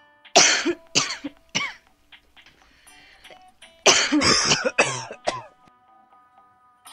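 A person coughing: three single coughs in the first two seconds, then a longer fit of several coughs about four seconds in. Soft plucked-string music plays underneath.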